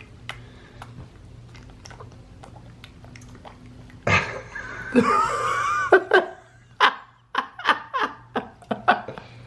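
Soft clicks, then about four seconds in a burst of laughter with high wavering squeals, followed by a run of short, rhythmic laughs.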